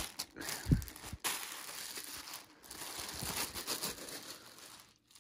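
Clear plastic poly bag crinkling and rustling as hats are handled and pulled out of it, with a soft thump about a second in. The rustling dies away near the end.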